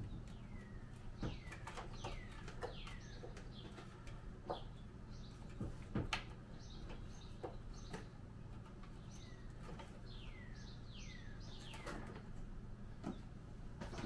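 Small birds chirping: short calls that drop quickly in pitch, coming in little groups every couple of seconds. Scattered clicks and knocks of a bilge pump being handled and pressed into its mount in a jet ski hull, the loudest about six seconds in, over a low steady hum.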